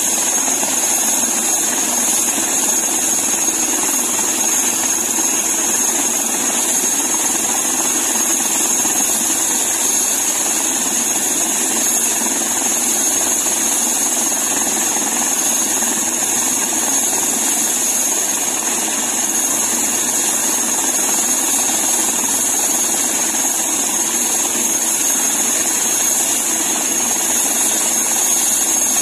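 Airbus H145 helicopter running at ground idle on the pad: a steady high turbine whine over the broad rush of its engines and turning rotor, holding level with no change.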